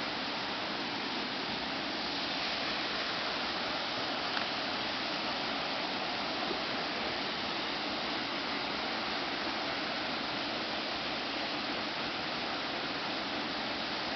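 Steady rush of creek water flowing over rocks, an even noise with no change in level.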